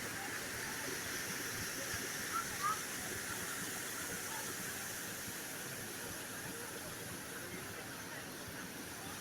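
Steady rush of falling water from a waterfall, with a couple of faint short chirps about two and a half seconds in.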